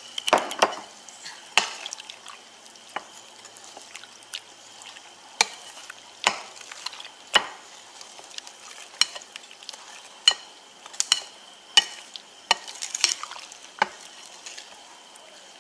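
Metal spoon stirring a flour batter in a glass mixing bowl, with irregular clinks and scrapes of the spoon against the glass, roughly one a second.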